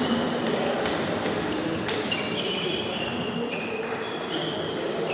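Table tennis balls clicking off bats and tables in rallies, with several games going at once: irregular sharp clicks and short high pings over a low murmur of voices.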